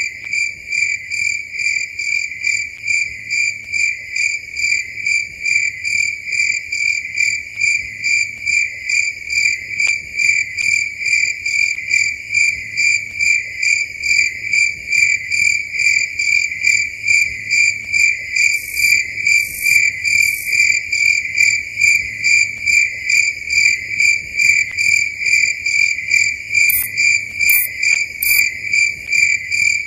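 Crickets chirping at night: one loud, steady, high-pitched chirp repeating about two to three times a second. Twice, past the middle and again near the end, three short, even higher-pitched buzzes come in quick succession.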